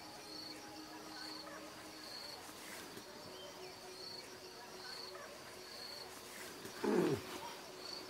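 An insect chirping steadily outdoors, one short high chirp repeated at even intervals a little more than once a second. About seven seconds in, a brief, louder sound sweeps downward in pitch.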